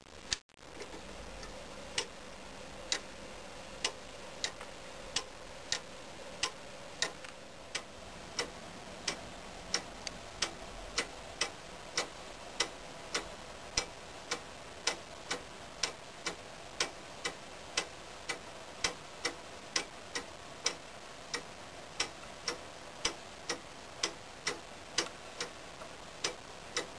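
Antique iron-wheeled clock movement ticking steadily, about one and a half ticks a second, the ticks starting about a second in.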